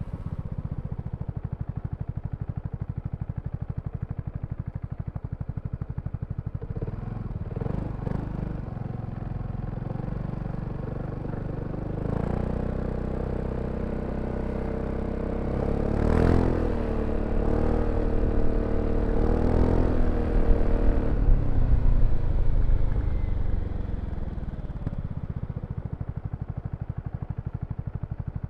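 BMW C400X scooter's single-cylinder engine running with an even pulsing beat, then speeding up about twelve seconds in and pulling harder for around ten seconds, with a sharp click partway through, before settling back to the slow pulsing beat near the end.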